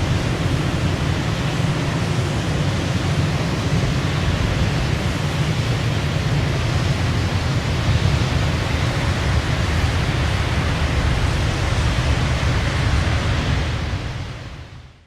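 Nature ambience sound effect: a steady rushing noise with a heavy low rumble, fading out near the end.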